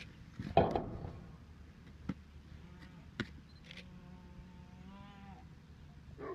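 A tiger biting and tearing a cardboard box: a loud rip of cardboard about half a second in, then two sharp clicks. A long, low animal call sounds a little past the middle.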